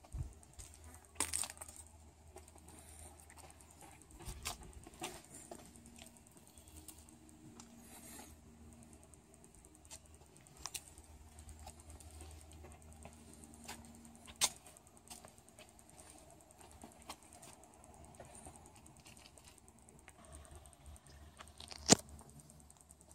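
Quiet background with scattered small clicks and light rattles, about half a dozen in all; a sharp click near the end is the loudest.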